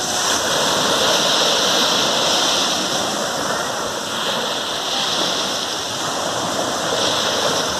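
Small waves breaking and washing up on a beach: a steady hiss of surf that swells every few seconds as each wave comes in.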